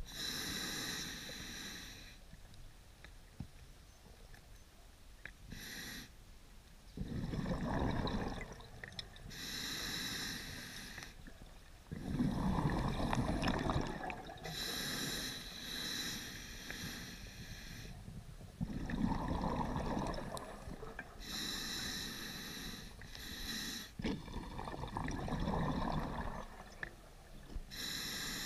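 Scuba diver breathing through a demand regulator underwater: hissing inhalations through the regulator alternate with rumbling bursts of exhaled bubbles, about four slow, even breaths.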